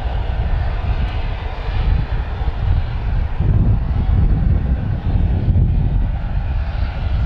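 Aircraft engine running: a loud, steady rumble, heaviest in the low end, that swells slightly about halfway through.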